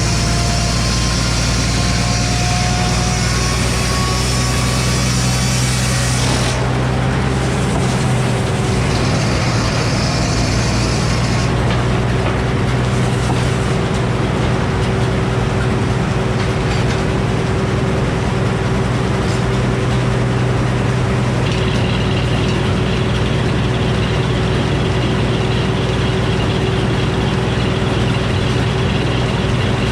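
Engine powering an old Frick sawmill, running steadily with a strong low hum. A high hiss rides on it for the first six seconds and again for a few seconds shortly after, then stops; a steady high whine joins about two-thirds of the way through.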